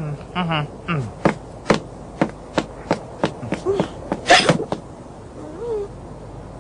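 Cartoon sound effects: a short warbling vocal sound, then a run of sharp clicks or taps, and one loud hiccup a little after four seconds in.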